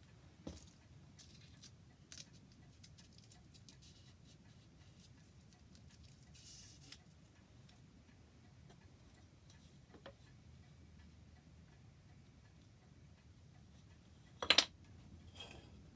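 Quiet handwork sounds: scattered faint clicks and a brief scrape, then one sharp knock about three-quarters of the way through.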